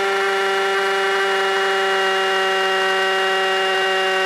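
Cordless drill running at full speed, boring a fixing hole into a stone wall, with a steady whine that holds one pitch.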